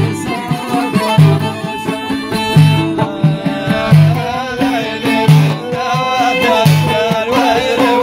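Amazigh folk music: loutars (Moroccan skin-topped lutes) plucked in a steady rhythm, with a violin and a man singing.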